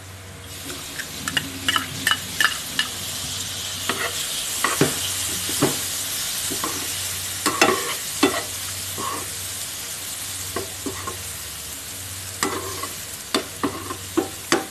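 Chopped tomatoes sizzling in hot oil and onion masala in a non-stick pan. The sizzle jumps up about half a second in, as the tomatoes go in, and a steel spoon stirs them, scraping and tapping the pan in many sharp clicks.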